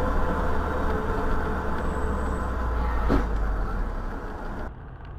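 Steady engine hum and road noise inside a moving vehicle, picked up by a dashcam, with one sharp knock about three seconds in. Near the end the sound drops and turns duller.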